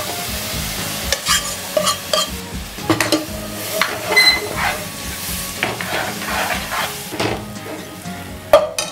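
Ladle stirring boiled vegetables and their cooking water into a kadai of hot oil tempering, scraping and knocking against the pan over a steady sizzle.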